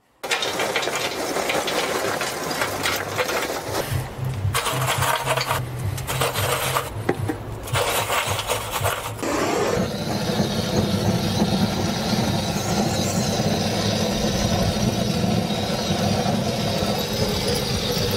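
Handheld gas torch firing its flame onto charcoal in a kettle grill to light it: a loud, steady rushing hiss. The first half is rougher and broken twice by short gaps, and the sound settles into an even roar about halfway through.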